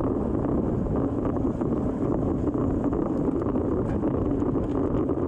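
Steady low rush of wind buffeting the microphone of a racing cyclist's camera while riding into a headwind.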